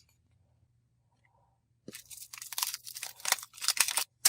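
A quick run of crisp crackling and crunching from hands working the slime package, starting about halfway through after near silence.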